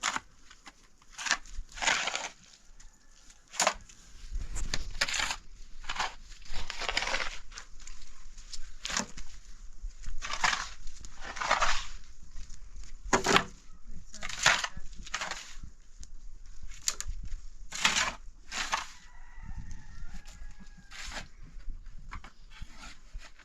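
Chickens clucking and squawking in short, irregular calls, with a faint rooster crow about nineteen seconds in.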